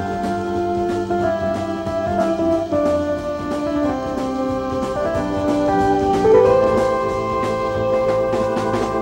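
Progressive rock band playing an instrumental passage. A keyboard lead plays a melody in long held notes with a brassy tone, over bass and drums.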